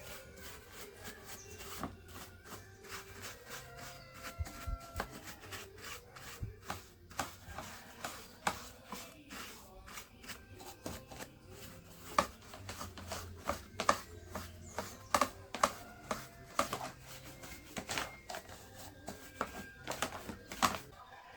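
Irregular clicks, taps and light rubbing as parts of an old ceiling fan are handled and worked on by hand, the clicks coming thicker from about eight seconds in.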